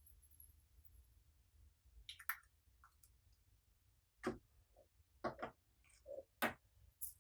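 Slime being worked by hand, giving a handful of separate sharp pops and crackles.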